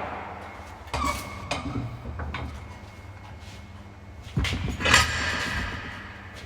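Scattered knocks and clanks of steel workpieces and tools being handled and set down on a workbench, a few sharp strikes with quieter shuffling between.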